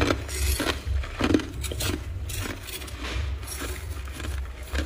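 Powdery freezer ice being chewed in irregular crisp crunches, two or three a second, over a low rumble.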